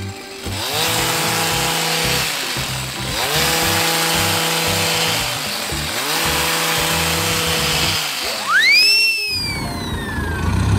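A power hedge trimmer is revved three times: each run spins up, holds steady for about two seconds, then winds down. Background music plays underneath, and near the end a rising-then-falling swoosh sound effect is heard.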